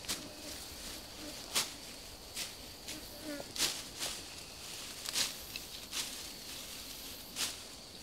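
Fern stems and dry undergrowth snapping and rustling in short sharp crackles, about one a second, as hands pull at the plants. A steady high insect drone runs underneath.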